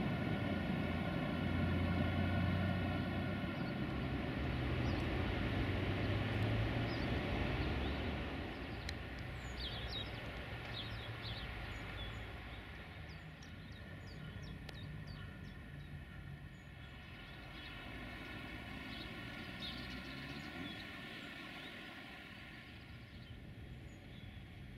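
Diesel locomotive engine running with a steady droning hum, fading away after about eight seconds. Birds chirp in short calls as it dies down.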